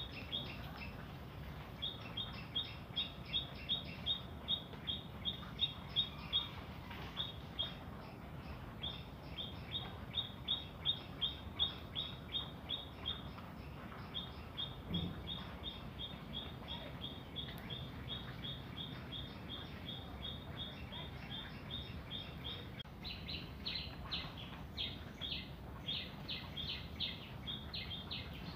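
Small high chirps repeated in quick, evenly spaced runs of a few seconds, about four or five a second, over a faint low steady hum. A second, busier chirping joins near the end.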